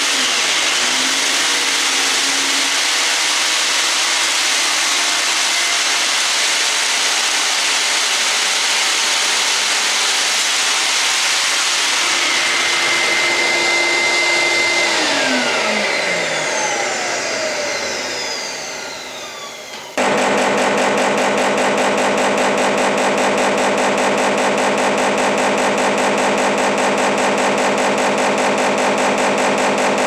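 Interskol PU-32/1200 wet/dry shop vacuum running steadily, then its motor winding down with a falling whine after about halfway. Near the two-thirds mark a rapid, even buzzing rattle starts abruptly and continues: the vacuum's electric filter shaker cleaning the clogged filter.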